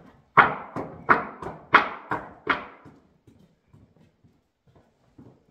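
A small child's footsteps in rubber boots thudding along wooden boards lying on the floor: about seven quick steps in a little over two seconds, then only faint scuffs.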